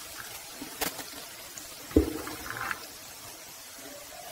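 Chopped spinach being pushed by hand from a plastic board into a frying pan of fried onions: leafy rustling over a faint steady hiss, with a click just under a second in and a sharp knock about two seconds in, the loudest sound.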